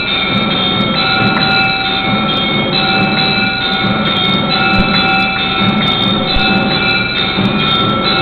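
Temple bells ringing without a break, a loud, dense clanging with several ringing tones that overlap and shift every half second or so.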